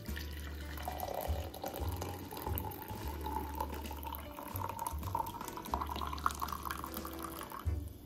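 Coffee poured from a French press into a ceramic mug: a steady splashing stream whose pitch rises slowly as the mug fills, stopping just before the end.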